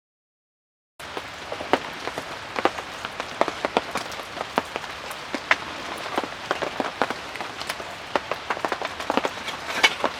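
Rain falling, with many sharp, irregular drop hits on a nearby surface over a steady hiss; it begins abruptly about a second in.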